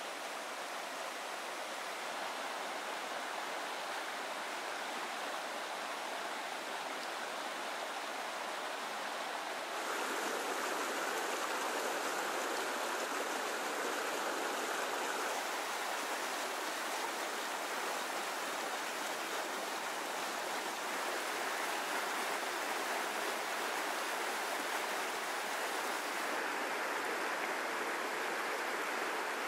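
Small rocky mountain creek rushing over boulders and riffles, a steady even rush of water. It steps up a little louder about ten seconds in.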